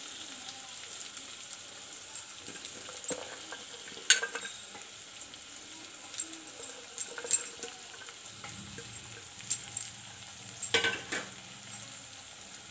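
Sliced onions frying in hot mustard oil in an aluminium pot: a faint steady sizzle, broken by a few sharp clicks.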